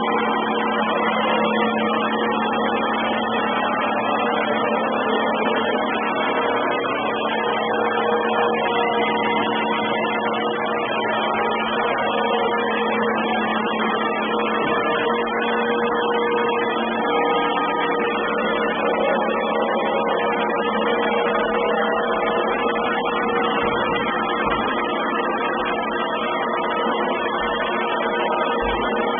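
Samsung robot vacuum cleaner running: a steady motor and brush whine with several held tones, the lowest of which weakens and shifts a little past halfway. The recording is heavily distorted.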